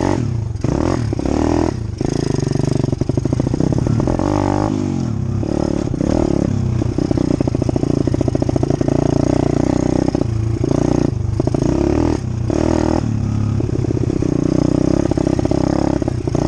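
Dirt bike engine running as it is ridden along a trail, its pitch rising and falling with the throttle and dipping briefly several times as the throttle is shut off, over steady hiss.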